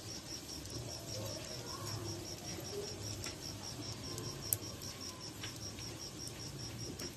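Cheese sticks deep-frying in a wok of hot oil, sizzling with scattered small crackles and one sharp pop about four and a half seconds in, while a cricket chirps in a fast, even pulse throughout.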